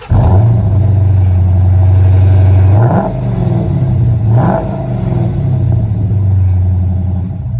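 Vehicle engine idling with a low steady drone, revved briefly twice: about three seconds in and again about a second and a half later.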